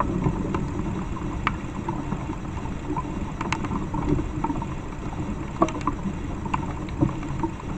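Two pileated finches bathing in a shallow water basin, making small scattered splashes and flicks, a handful of short sharp ticks over a steady low rumble.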